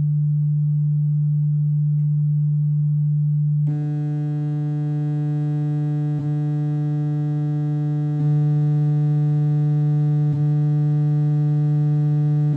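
Low, steady electronic tone at about 148 Hz from a wavetable DAC module. It is a pure sine at first, then about three and a half seconds in it turns into a buzzy sawtooth-like tone. Brief clicks come three times after that as the wavetable changes.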